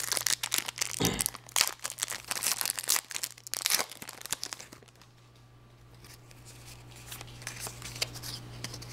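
A foil trading card booster pack being torn open and crinkled by hand: a dense run of crackles and tearing that dies down about four seconds in to faint rustling.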